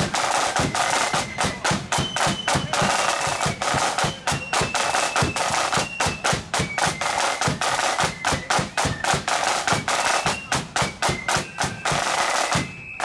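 Marching flute band playing: snare and bass drums beat a fast, steady march rhythm under a high flute melody, and the tune stops at the very end.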